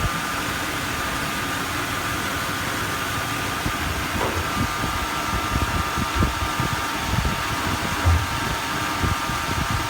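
Remanufactured 5.0 L V8 in a 1997 Chevrolet K1500 pickup running steadily on its first start-up, with a steady high whine over the engine noise and occasional low thumps.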